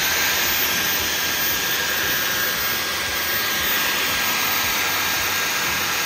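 Dyson V15 Detect cordless stick vacuum running on Boost, its highest power mode: a loud, steady rushing hiss with a faint, thin, steady whine in it.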